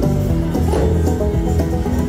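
Slot machine bonus-round music: a quick, busy tune of short notes playing steadily while the win total counts up.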